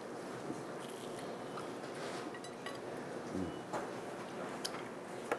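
Quiet room tone with a few faint scattered clicks, and a brief closed-mouth 'mm' hum of appreciation about three and a half seconds in.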